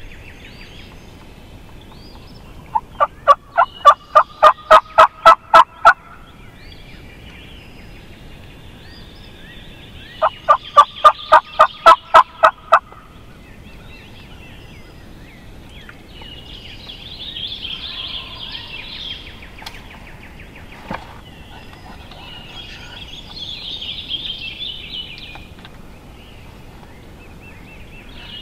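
Wild turkey calling close by: two loud series of yelps, each about three seconds of evenly spaced notes, roughly four a second.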